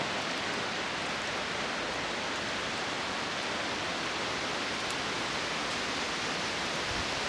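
Steady outdoor rushing noise, even throughout, with no distinct events.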